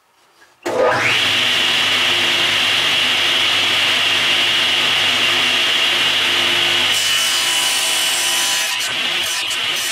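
Table saw switched on just under a second in, spinning up quickly to a steady high blade whine, then running while a small piece of wood is passed across the blade to cut away the waste of a half lap joint; the sound changes about seven seconds in.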